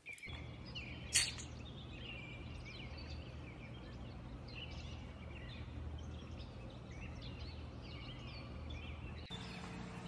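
Small parrot chirping: short, high chirps scattered irregularly over a steady low hum, with one sharp click about a second in.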